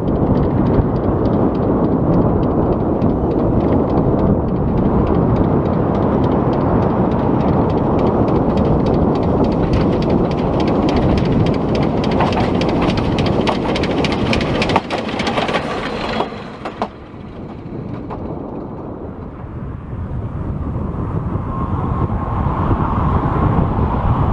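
A narrow-gauge train running on the rails: a heavy, steady rumble with rapid clicking from the wheels. It drops away suddenly about two-thirds through, then builds again with a faint steady whine near the end.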